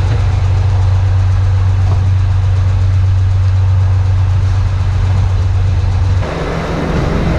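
Loud, steady low mechanical hum like an idling engine. It changes abruptly to a different, rougher hum about six seconds in.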